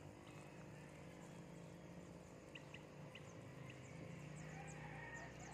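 Faint water sprinkling from a tin can onto soil around a seedling, with a few short, faint high chirps about halfway through.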